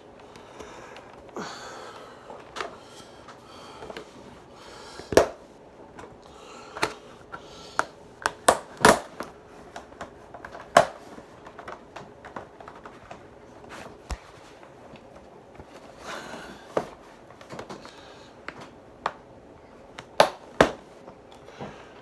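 Handling noise: irregular sharp clicks and knocks over light rustling, with a few loud ones, two of them close together near the end.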